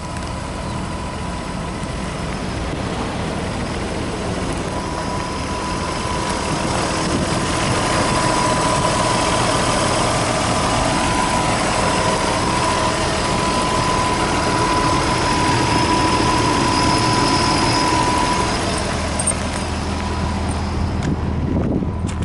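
Nissan Skyline engine idling steadily through an aftermarket muffler; the low exhaust note grows stronger near the end.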